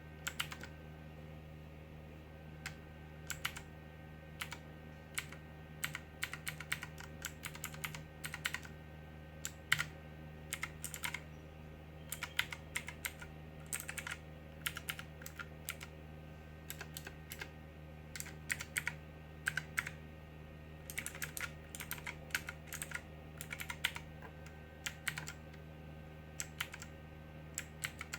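Armaggeddon MKA-5R RGB Falcon mechanical keyboard being typed on: quick, irregular clusters of key clicks with short pauses between runs.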